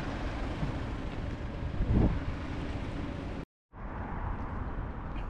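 Outdoor street ambience: steady road traffic noise mixed with wind on the microphone, swelling once about two seconds in. The sound cuts out completely for a moment about three and a half seconds in, then resumes.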